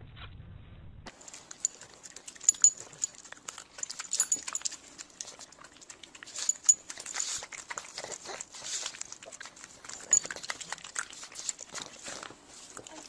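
A dog making small noises, with a string of irregular short clicks and scuffs; no barking.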